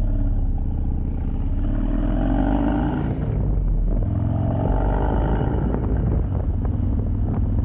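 2004 Harley-Davidson Dyna's Twin Cam 88 V-twin running through a Bassani exhaust on a freshly flashed tune, under way: it pulls up in pitch, drops at a gear change about three seconds in, pulls up again and settles to a steady cruise.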